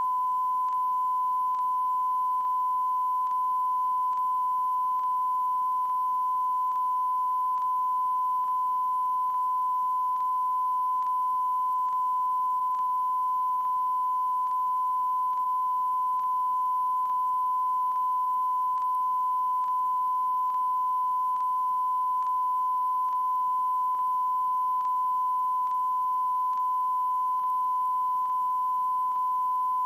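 Steady, high-pitched test tone from the end of a VHS tape, starting suddenly and holding one unchanging pitch, with faint regular clicking under it.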